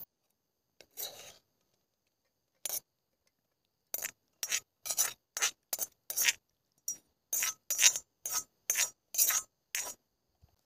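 A series of short rasping scrapes: two single ones, then from about four seconds in a quick run of about fifteen, between two and three a second.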